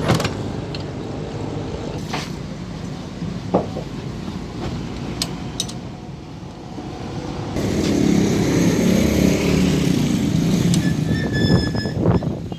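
Car engine running, with a few clicks and knocks; from about eight seconds in it gets louder and fuller.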